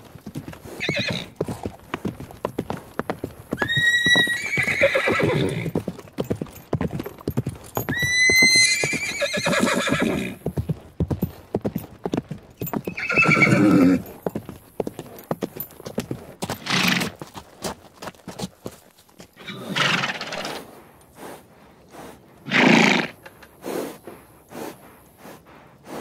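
Horses neighing loudly several times, with long whinnies about four, eight and thirteen seconds in and more calls later, over a fast clatter of hooves clip-clopping.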